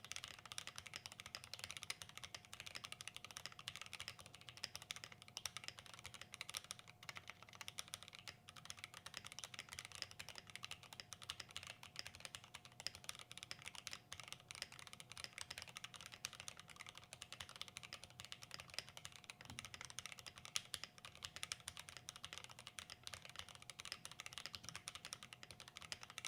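Fast, continuous typing on a custom-built Glorious GMMK Pro mechanical keyboard with lubed switches and a polycarbonate plate: a dense, unbroken run of rapid key clicks, as in a typing speed test.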